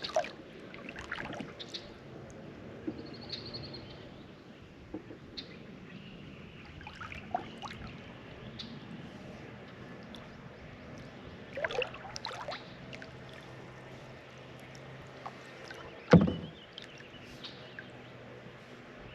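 Kayak paddling: paddle strokes dipping and dripping, with scattered knocks of the paddle against the kayak hull, the loudest about 16 seconds in, over the low wash of the river.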